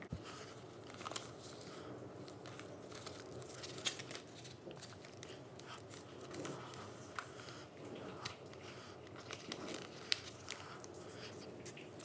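A sheet of paper being folded and creased by hand: irregular crinkling and rustling, with scattered sharp little clicks as fingers press down the folds.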